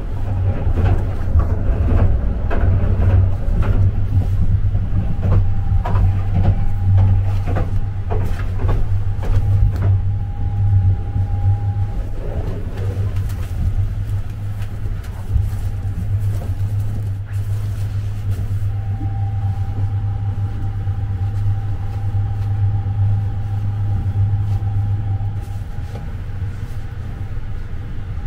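Steady low rumble of the Sunrise Express, a 285-series electric sleeper train, running, heard inside a sleeping compartment. Cloth rustles as a yukata and pillow are handled during the first ten seconds or so, and a faint steady whine comes in twice, briefly and then for several seconds.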